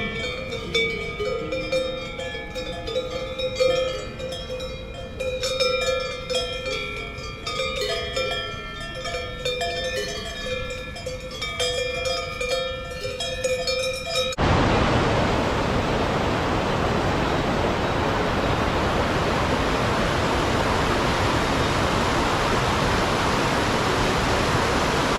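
Many alpine cowbells clanking and ringing irregularly, overlapping as the herd moves. About two-thirds of the way through it cuts abruptly to a loud, steady rushing of water.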